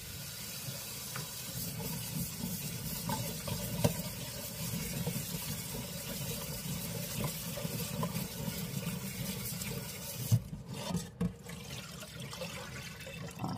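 Kitchen tap running into a sink while okra is washed by hand. The water stops about ten seconds in, followed by a few knocks.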